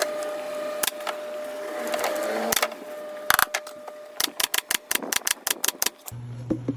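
Sharp clicks, a few scattered at first, then a quick run of about six a second, followed by a steady low hum near the end.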